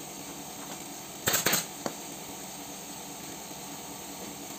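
A quick run of three or four sharp clicks about a second in, then one more click shortly after, over a steady background hiss.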